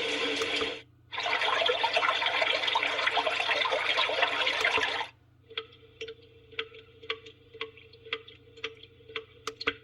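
A sunrise alarm clock's built-in nature sound playing through its small speaker: a steady rush of running water that cuts out for a moment just under a second in and stops abruptly about five seconds in. A quieter track of scattered sharp clicks over a faint steady tone follows.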